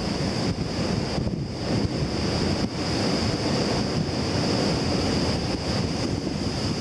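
Tropical-storm-force winds of Hurricane Iselle blowing in a continuous rush, with heavy wind noise buffeting the microphone.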